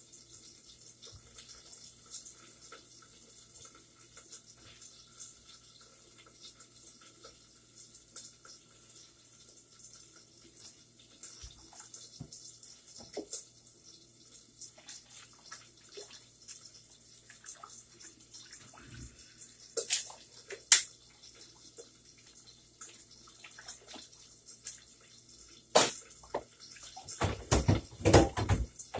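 Water running from a kitchen tap into a sink, with small clinks of dishes being handled. Sharp knocks come about two-thirds of the way through, then a burst of louder clattering near the end.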